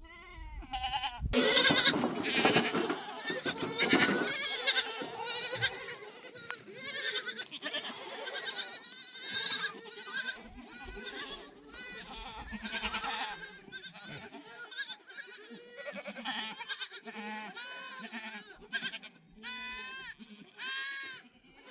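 A flock of goats bleating: many overlapping, quavering calls, thickest and loudest a second or two in, then single bleats following one another.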